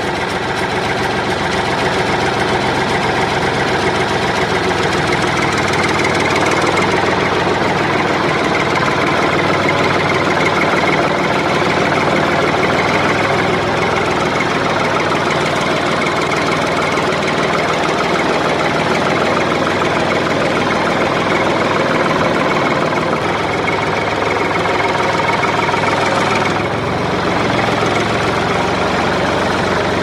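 Tractor engine running steadily, a dense clattering rumble at an even level, with a brief slight dip near the end.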